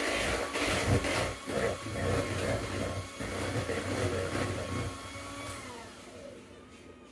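Electric hand mixer running, its beaters churning brown sugar cake batter in a bowl, with a steady motor whine under an uneven churning noise. The sound grows quieter and the whine dips in pitch near the end as the mixer winds down.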